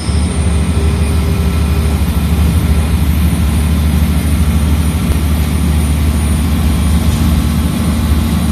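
Inside the passenger car of a moving diesel regional train: a steady, loud low engine drone with the rumble of the running train.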